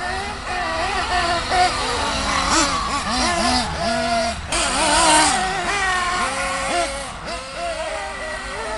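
Several radio-controlled off-road buggies racing, their small engines revving up and down in quick rising and falling whines that overlap. A louder rushing hiss comes about halfway through.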